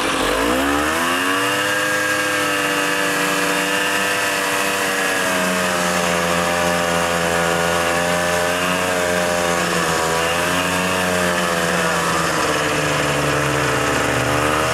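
Snowmobile engine on the move: its pitch climbs sharply as the throttle opens in the first second or so, then holds at speed with small rises and falls.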